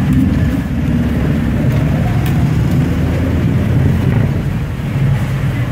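A steady low rumble, with a few faint scrapes and taps of metal spatulas on the steel plate of a rolled-ice-cream cold pan.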